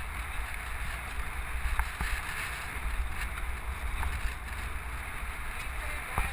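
Wind buffeting the microphone of a camera on a bicycle riding along a dirt road, over a steady hiss of tyres rolling on dirt and gravel, with a few small clicks and rattles from the bike.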